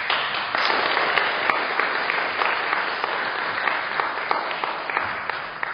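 Audience applauding, starting abruptly and easing off near the end.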